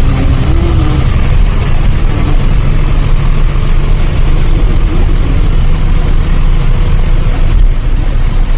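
Truck on the move: a steady low engine and road rumble.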